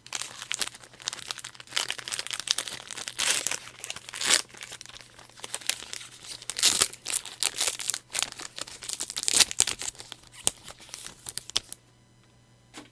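Trading-card booster pack wrapper crinkling and tearing as it is worked open by hand, with sharp crackles throughout, stopping about a second before the end.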